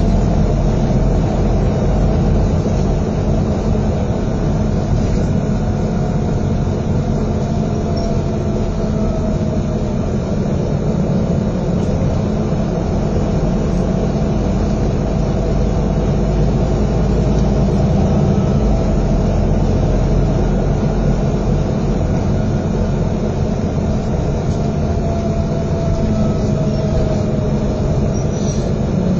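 Interior of East Yorkshire Motor Services bus 788 on the move: steady engine and road noise heard from a passenger seat, with a faint whine rising in pitch twice as the bus picks up speed.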